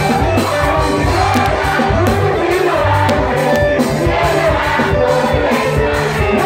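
Loud amplified church choir music: voices singing together over a deep bass line that holds and changes notes.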